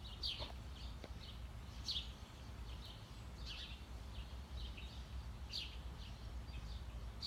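Bird calling: a short, high, downward chirp repeated about every one and a half to two seconds, with fainter chirps in between, over a steady low background rumble.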